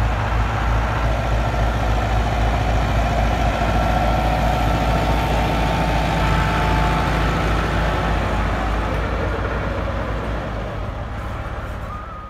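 Massey Ferguson 385's four-cylinder diesel engine running steadily under load while pulling a rotavator through dry soil, with the churning of the rotavator under it. The sound fades out over the last couple of seconds.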